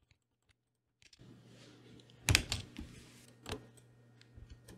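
Opens with about a second of dead silence, then faint room tone with a few sharp computer keyboard clicks, the loudest a couple of seconds in and another about a second later.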